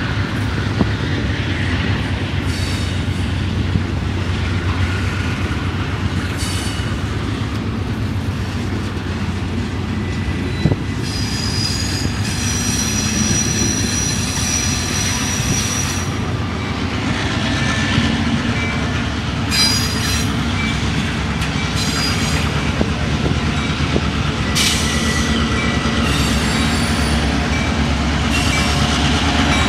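A double-stack container train of well cars rolls past with a steady rumble of steel wheels on rail. High-pitched wheel squeal comes in several stretches, the longest starting about twelve seconds in.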